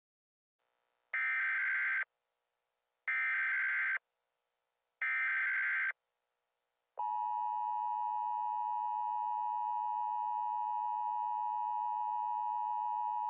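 Emergency Alert System signalling: three short, identical bursts of the SAME digital header, a raspy data screech of about a second each, a second apart, then from about seven seconds in the steady two-tone EAS attention signal, which holds without change. Together they announce the start of a new emergency alert message.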